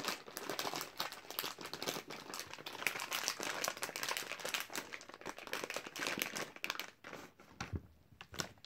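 A plastic candy bag crinkling and crackling as a hand rummages in it. The crinkling thins out to a few last crackles after about seven seconds.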